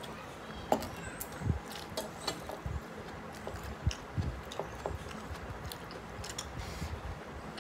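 Mouth sounds of someone chewing mouthfuls of mutton biryani: irregular smacking clicks, a few every second, with soft low thumps.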